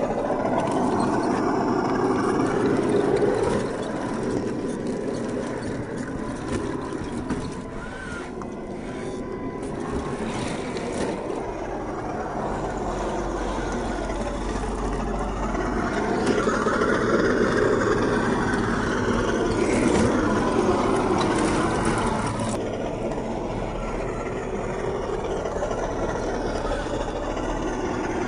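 HG P802 8x8 RC truck crawling over rock and roots: its 550 brushed electric motor and geartrain whine under throttle, swelling louder twice as it works over the obstacles.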